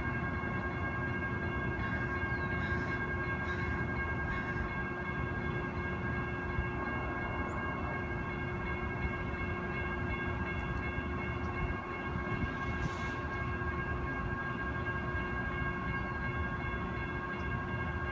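Steady mechanical hum: a low rumble under several constant whining tones that do not change.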